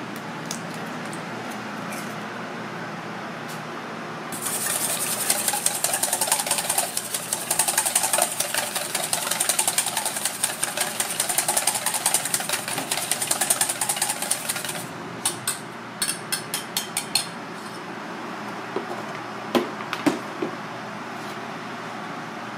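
Wire whisk beating egg in a stainless steel mixing bowl: a fast, rapid clatter of the wires against the metal, starting about four seconds in and lasting some ten seconds. It is followed by several separate metal taps, all over a steady background hum.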